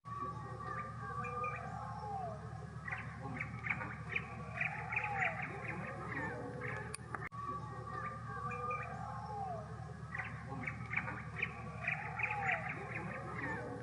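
A flock of birds squawking and chirping, with repeated short, rising-and-falling calls over a steady background. The same stretch of calls appears to play twice, with a brief cut about seven seconds in.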